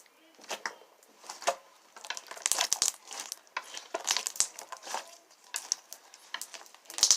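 Slime being squeezed and stretched by hand, giving a few separate sticky pops and then a dense run of crackling clicks.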